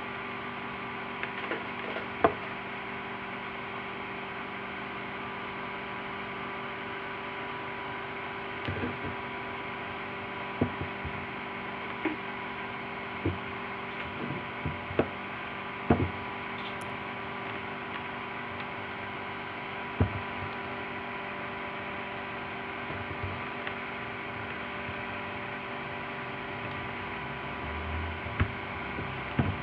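A steady electrical hum with a faint hiss, broken by scattered short knocks and clicks about ten times.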